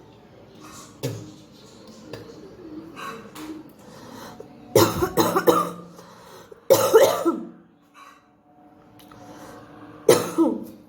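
A woman coughing deliberately in bursts: a single cough about a second in, a quick run of harsh coughs around the middle, another loud cough straight after, and one more near the end.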